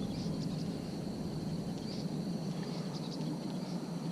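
Outdoor ambience by a pond: a steady high insect drone, like crickets, with a few faint short chirps over a low steady rumble.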